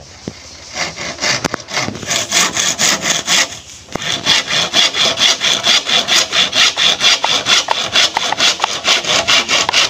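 Handsaw sawing across a bamboo tube in quick, even back-and-forth strokes, with a short break about three and a half seconds in before the strokes pick up again.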